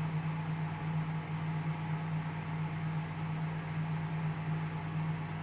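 Steady low hum of a running household appliance, with a faint even hiss over it.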